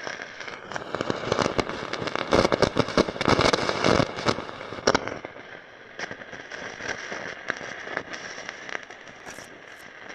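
Chinese-made car amplifier with no input signal, crackling and popping through the speaker. This is the amplifier's fault. The crackles are dense for about the first half, then thin out to scattered pops over a faint hiss.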